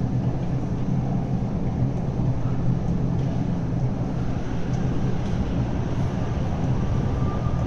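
MTR Kwun Tong line M-Train running out of service through an underground station platform: a steady low rumble and hum with no sudden changes.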